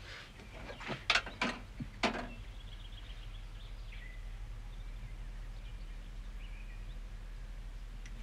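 A few short clicks or rustles in the first two seconds, then quiet outdoor ambience: a steady low hum with a few faint high chirps.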